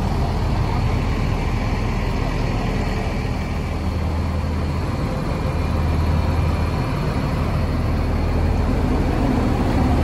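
Coach bus diesel engines idling: a steady low rumble.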